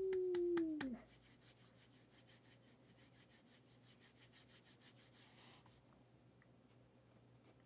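A short squeal falling in pitch with a rattle of clicks, then about four seconds of faint, fast, even rubbing and scratching as hands handle a trading-card box and its packaging.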